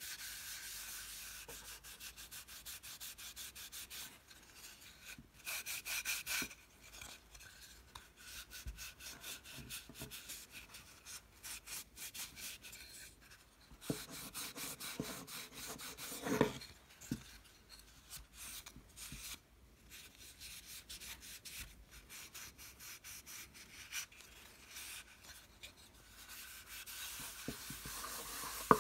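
A pine block being hand-sanded with a small folded piece of abrasive: quick back-and-forth rubbing strokes with brief pauses, and a couple of light knocks near the middle.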